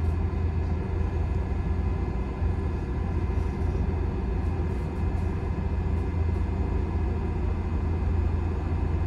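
Steady low rumble of a JNR-built 103 series electric commuter train, heard from on board.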